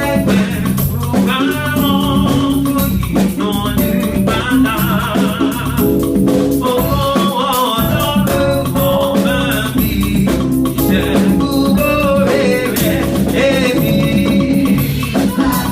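Live gospel praise music: voices singing over a band, with a shaker and drums keeping a steady beat.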